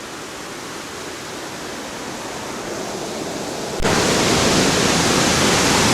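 Steady rushing of a waterfall, a dense even noise. It grows slowly, then turns abruptly louder about four seconds in.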